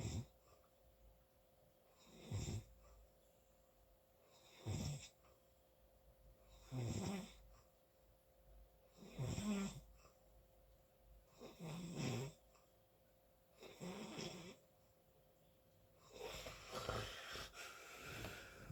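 A sleeper snoring, a rough rattling snore about every two and a half seconds. Near the end comes one longer, rougher snore.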